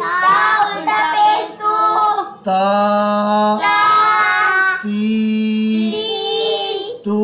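An adult and a child reciting Arabic letter syllables in turn, in a chanted sing-song, each vowel held steady for about a second. The long vowels are those of khari zabar, khari zer and ulta pesh, drawn out one alif in length.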